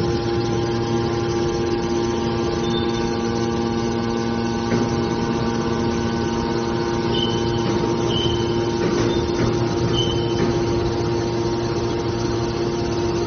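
Hydraulic metal baler running: a steady hum from its motor and pump, with a few short high squeaks about halfway through.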